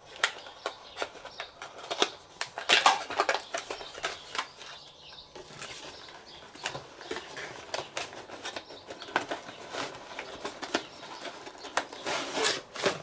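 Paper and thin cardboard rustling, crinkling and tapping as a small cardboard product box and its paper leaflet are handled and opened, in irregular bursts of sharp clicks.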